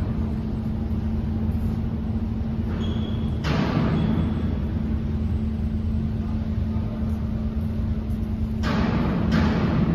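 Steady low rumble and hum of the machinery at a robotic welding station. A few sudden rushes of noise, each dying away within about half a second, come once midway and twice near the end.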